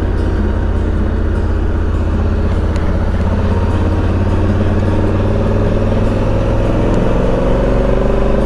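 Honda Africa Twin 1100's parallel-twin engine running under way, its pitch rising slowly through the second half as the bike picks up speed.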